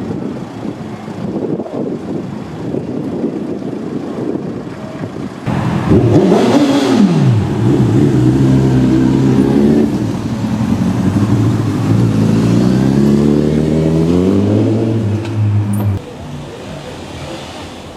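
Street traffic noise, then about five seconds in a loud motor vehicle engine comes in: its pitch falls, then climbs twice as it accelerates through the gears, holds steady and cuts off suddenly near the end.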